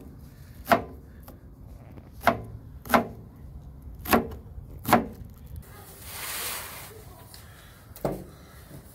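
Chef's knife chopping green onions on a plastic cutting board: five sharp, unevenly spaced chops over the first five seconds. A soft hiss follows for about a second and a half, then a single knock near the end.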